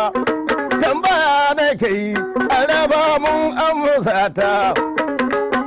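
A man singing to his own gurmi, the Hausa plucked lute, with a wavering voice over rapid plucked notes.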